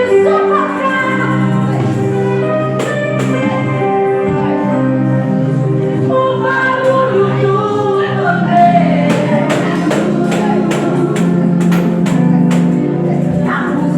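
Gospel music: voices singing held notes over tambourine and other percussion strikes, which come thicker in the second half.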